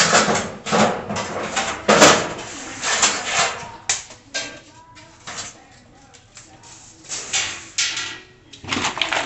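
Handling noise from gas-grill parts being worked by hand: a run of rustling, scraping bursts and a few sharp knocks. The loudest burst comes about two seconds in and a sharp knock near four seconds.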